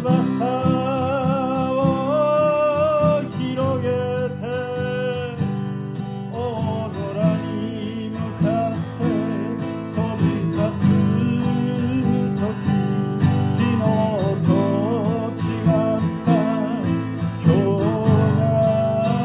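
A man singing a song in Japanese, accompanying himself by strumming an acoustic guitar.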